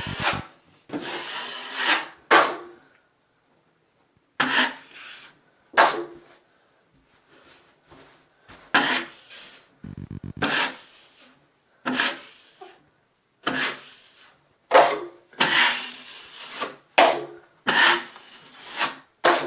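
Steel drywall knife scraping joint compound across a drywall patch: a dozen or so separate scraping strokes, each about a second long, at an uneven pace.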